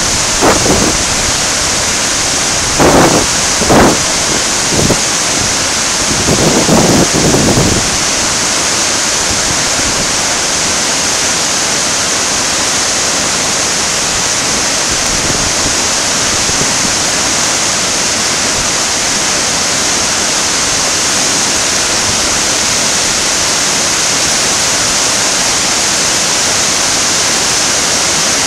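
Steady rushing of whitewater pouring over a rocky river drop, with a few brief buffets of wind on the microphone in the first eight seconds.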